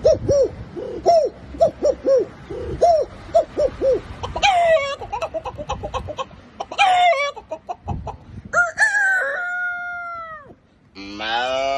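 A man's voice imitating a chicken: a quick run of short clucks, then three rooster-like crows, the last one long and trailing off. Near the end a new long, held animal call begins.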